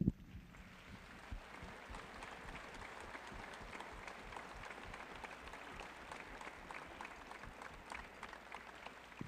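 A brief thump right at the start, then faint, steady applause from the audience.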